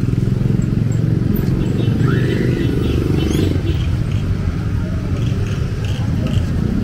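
A motor vehicle engine running close by, a steady low rumble.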